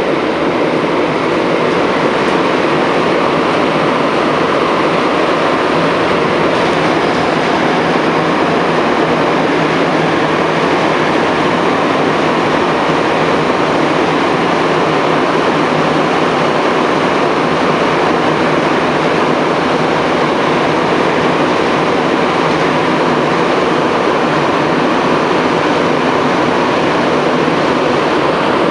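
Montreal Metro MR-73 rubber-tyred train running at speed through a tunnel, heard from inside the car: a steady, loud running noise with a low hum underneath.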